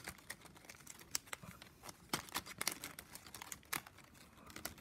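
9 mm plastic strapping band being threaded through and pressed into the weave by hand: faint, irregular clicks and crinkling as the stiff strips rub and flex against each other.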